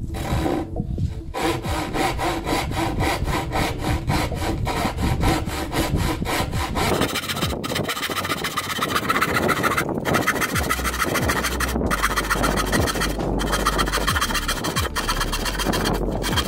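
Handsaw cutting through wood in quick, even back-and-forth strokes, with a few short breaks in the second half.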